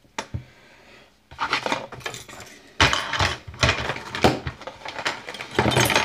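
Metal hand tools clinking and clattering as they are handled on the workbench, a rapid run of sharp metallic clicks starting about a second and a half in.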